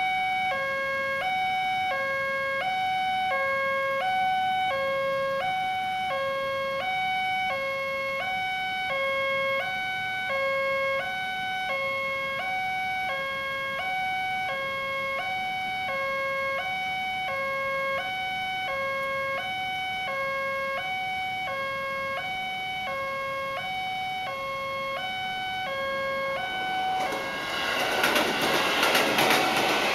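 Electronic warning alarm of an Indonesian railway level crossing, two tones alternating high and low about once a second. Near the end a JR 205-series electric commuter train passes, its loud rushing noise and rapid wheel clicking drowning out the alarm.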